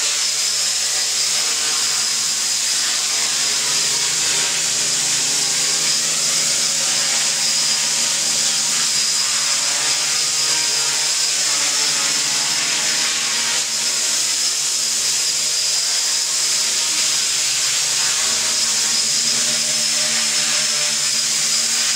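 RCtimer 450 V2 quadcopter's four brushless motors and propellers whining steadily as it hovers, the pitch of the motors drifting up and down slightly as they speed up and slow down to hold it level.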